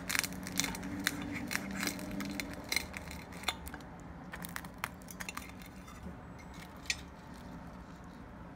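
Crisp oven-baked lavash crust crunching and cracking as a fork breaks through the edge of a filled lavash boat: a dense run of sharp crackles for the first few seconds, thinning to scattered single cracks.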